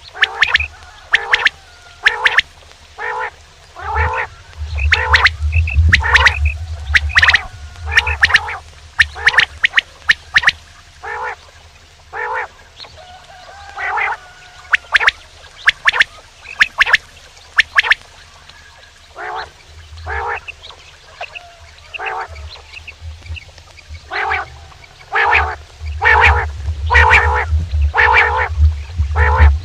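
Male quail calling over and over, short sharp calls in quick series a second or so apart, with a low rumble underneath at times.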